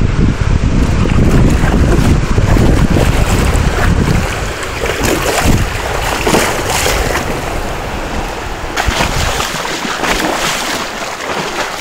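Wind buffeting the microphone with a heavy rumble for the first four seconds or so. Shallow surf washes and splashes around legs wading through the breaking waves, in irregular splashes that carry on after the wind eases.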